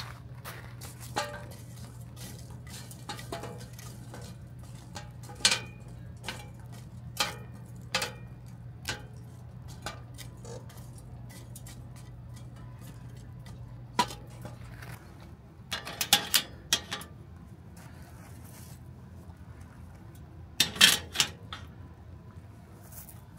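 Metal tongs clinking against charcoal briquettes and the stainless-steel Snow Peak Pack and Carry Fireplace as the coals are spread out, a scattered string of sharp clicks and clinks. Near the end comes a louder cluster of metal clanks as the wire grill grate is set onto the firebox.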